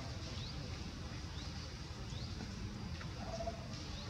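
Outdoor ambience of short, high rising chirps, about one a second, over a steady low rumble, with a brief lower-pitched call about three seconds in.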